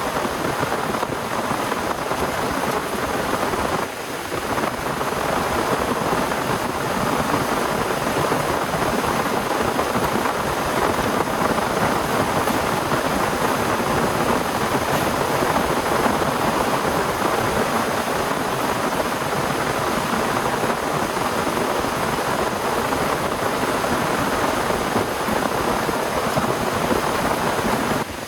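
Heavy rain falling as a dense, steady hiss, with a brief lull about four seconds in.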